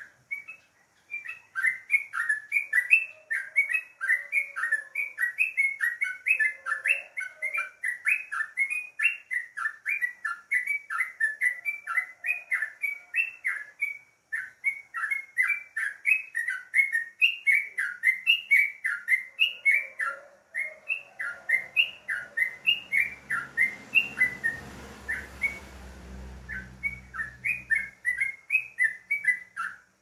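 Caged yellow-vented bulbul (trucukan) singing a fast, continuous run of short chirping notes, several a second, with a couple of brief pauses. A low rumble rises in the background past the middle and fades near the end.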